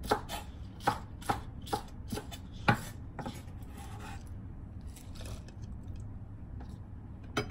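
Kitchen knife chopping scallion on a wooden cutting board, steady strokes about two a second. After about three seconds the knocks become fewer and fainter.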